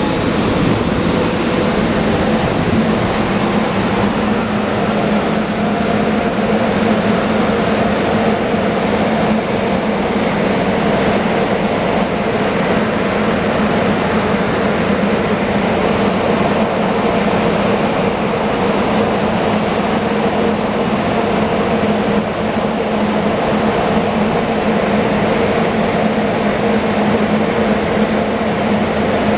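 SEPTA Silverliner IV electric railcars standing at a station platform, their onboard equipment running with a steady rushing noise and a low hum. A thin high tone sounds for a few seconds about three seconds in.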